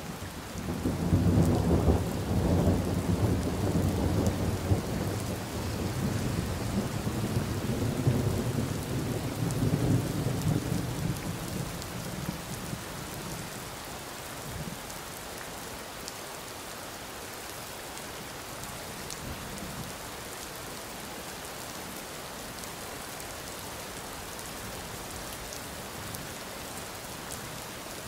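Steady rain with a long roll of thunder that breaks about a second in, rumbles low for around ten seconds and dies away, leaving the rain alone.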